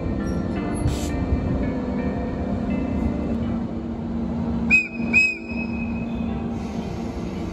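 EF64 electric locomotive humming steadily at low speed or standstill, with two short, sharp whistle toots about five seconds in.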